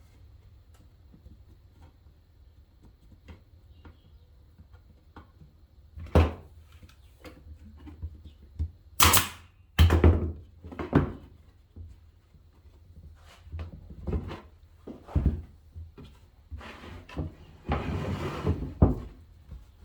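Boards of a wooden box being handled and knocked against each other, with sharp bangs from a brad nailer driving brad nails into the corner joint. The knocks begin about six seconds in and come irregularly.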